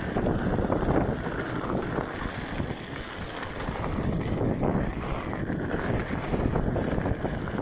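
Wind buffeting the microphone of a Onewheel Pint moving along a dirt trail, a steady, gusty rumble that rises and falls, mixed with the tyre rolling over the packed dirt.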